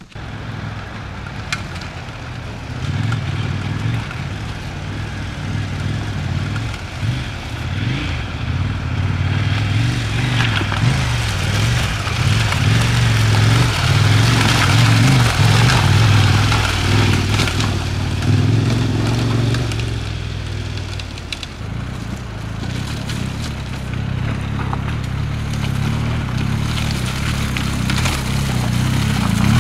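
Large adventure motorcycles, a KTM 1290 Super Adventure and a BMW R 1250 GS, climbing a loose gravel washout, the engine note rising and falling under throttle while the tyres crunch over the stones. The sound is loudest about halfway through as the KTM passes, dips, and builds again near the end as the BMW comes up.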